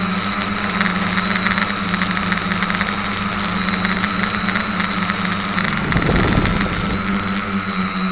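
SK450KK2 quadcopter's electric motors and propellers buzzing steadily in flight, heard from the camera mounted on its own frame. A brief low rush of noise comes about six seconds in.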